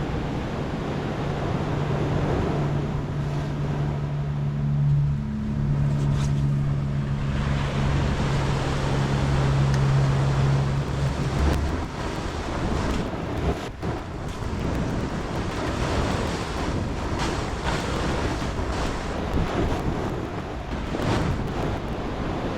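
Ocean surf washing on the shore, with wind buffeting the microphone. A steady low hum runs through the first half and stops about halfway, and a single sharp knock comes a little after.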